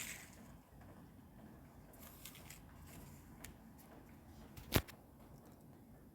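Plastic magnetic letters being handled on a magnetic board: a few faint clicks, then one sharp click about three-quarters of the way through.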